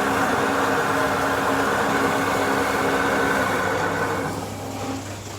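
A woodworking power tool's motor running steadily, with a constant whine over a noisy hiss; it drops away and gets quieter about four seconds in.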